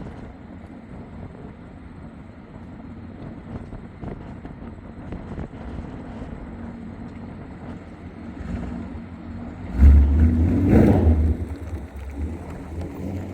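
2024 Mustang GT's 5.0 V8, breathing through long-tube headers and a Roush H-pipe and axle-back exhaust, driving past. The engine note builds slowly, then the car accelerates hard past about ten seconds in with a loud, deep exhaust burst that dies away over the next couple of seconds.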